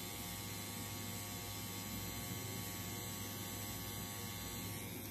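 Permanent-makeup dermograph running with a steady, faint electric buzz as its single-point needle traces the lip outline.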